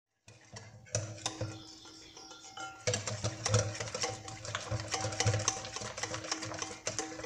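A spoon stirring thick yeasted zalabia batter in a glass bowl, with many quick clicks and scrapes against the glass, over background music with held notes.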